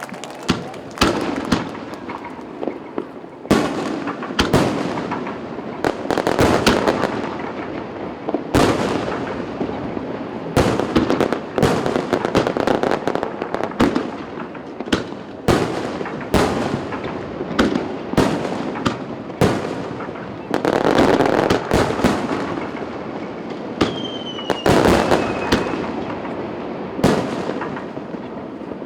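Aerial fireworks bursting overhead in quick succession: sharp bangs roughly every second, with crackling and rumbling between them. A short falling whistle sounds near the end.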